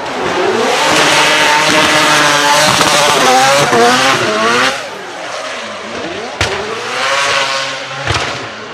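Mazda 26B four-rotor twin-turbo rotary engine revving hard through a burnout, its pitch climbing and falling with the tyres spinning and squealing. It backs off about halfway, then revs up again, with two sharp cracks in the second half.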